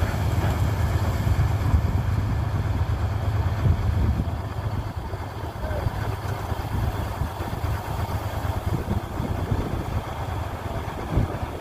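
Mahindra combine harvester running as it cuts wheat: a steady diesel engine hum with mechanical clatter, a little quieter from about four seconds in.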